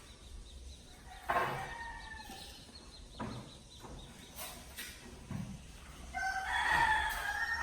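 A rooster crowing: a short crow a little over a second in, and a longer, louder crow near the end.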